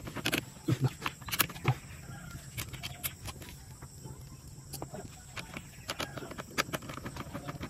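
Scattered light clicks and taps of hands and metal parts handled at the muffler end of a motorcycle's exhaust.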